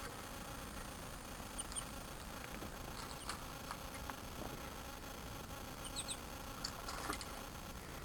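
Small songbirds chirping in a bird-feeder video played through computer speakers: a few short, faint, high chirps, some in quick pairs, over a steady low hiss.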